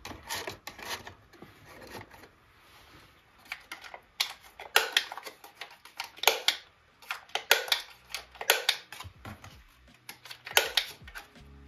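Handling noise from packing enamel pins: crisp rustling of small plastic pin bags and paper backing cards with sharp, irregular clicks and taps, louder and busier from about five seconds in.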